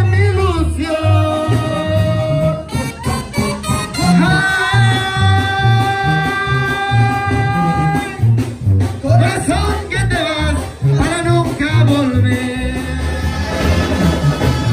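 Spanish-language song with a singer holding long notes over a steady bass beat, with others singing along.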